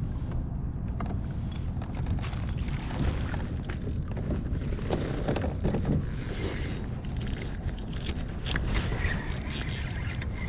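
Kayak under way on open water, with a steady low rumble of wind on the microphone and scattered light knocks and splashes from the hull and paddling.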